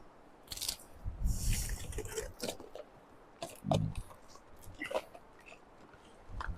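Wind gusting against the microphone in uneven low rumbles, mixed with scattered clicks and short rustles of handling.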